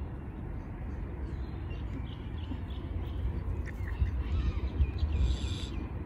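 Water birds calling faintly over a steady low rumble of wind on the microphone, with a short, harsh call near the end.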